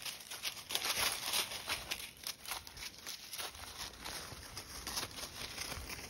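Footsteps crunching and rustling through dry fallen leaves, irregular crackles throughout.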